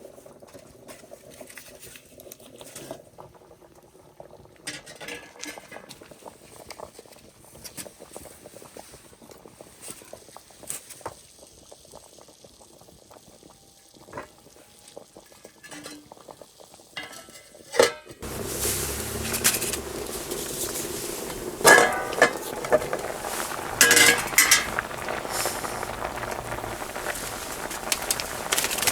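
Cooking sounds: scattered quiet clinks and taps of pots and utensils, then, from about two-thirds of the way in, a steady, louder bubbling of a pot at the boil with sharp metal clinks over it.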